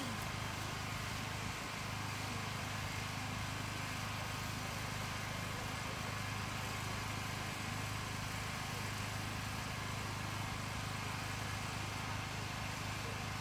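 A steady engine drone with a low hum.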